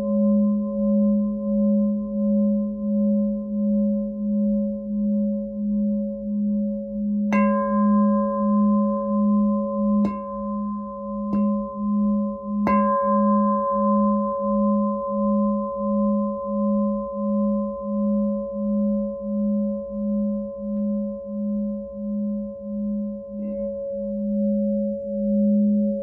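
A glass singing bowl rings with a low, sustained tone that pulses evenly, about one and a half swells a second. Between about a third and halfway through, four sharp strikes add brief bright, higher ringing over the hum.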